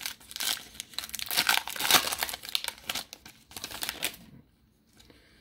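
Foil wrapper of a Panini Phoenix football card pack crinkling and tearing as it is opened and the cards are pulled out: a dense crackle for about four seconds that then stops.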